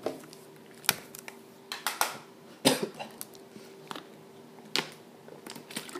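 A man coughing several times in short bouts, a cough from being ill.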